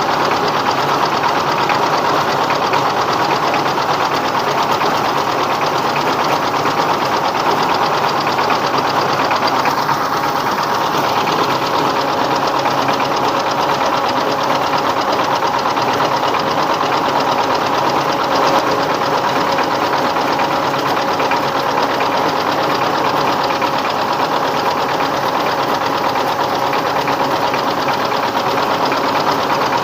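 Rice mill driven by a 24 hp "dompeng" single-cylinder diesel engine, running loud and steady: the engine's fast, even knock under the whirr of the milling machinery.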